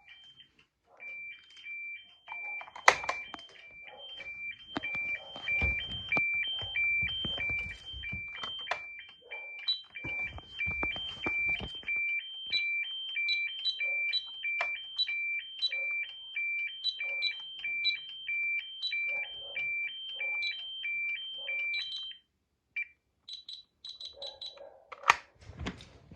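Fire alarm sounder giving a high two-tone alternating signal, about two cycles a second, with a higher beep chiming in now and then, over knocks and handling noise. The signal stops about 22 seconds in, followed by a few short high beeps and a sharp click.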